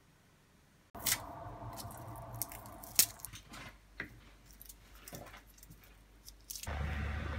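Garlic being broken into cloves and peeled by hand on a plastic cutting board: the papery skins crackle and rustle, with a few sharp clicks and taps, starting about a second in. Near the end a steady low hum comes in.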